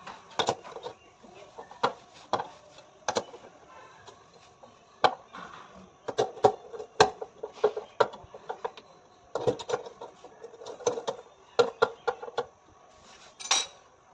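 Irregular hard knocks and clinks of tools and metal parts being handled while a front-load washing machine is reassembled, with a longer, louder rattle near the end.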